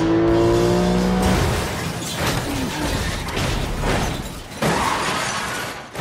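Car crash sound effects: a rising pitched tone for about the first second, then a long stretch of crashing metal and shattering glass as the car tumbles, with a sharp impact near the end.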